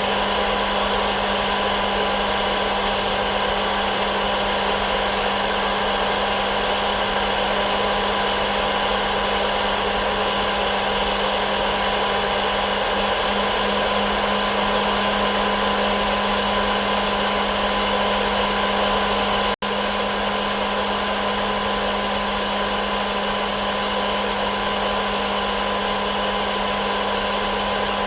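Hair dryer running steadily, a constant rush of air with a steady motor hum. It cuts out for an instant about twenty seconds in.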